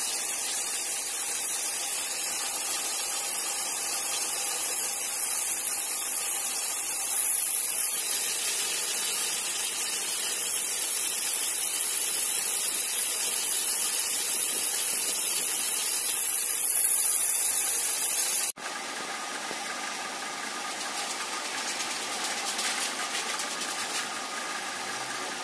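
Metal lathe running with a tool cutting a large spinning metal disc for a centrifugal pump, a steady hissing machining noise. About 18 seconds in it cuts abruptly to a quieter steady running sound as a twist drill bores the centre of the part.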